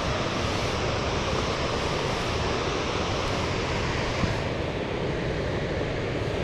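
Waterfall water rushing in a steady roar; the hiss dulls a little about two-thirds of the way through.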